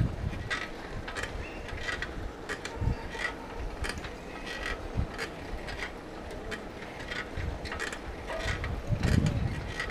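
A bike rattling and clicking irregularly as it rides over a rough surface, with wind buffeting the microphone in low rumbles, strongest about nine seconds in.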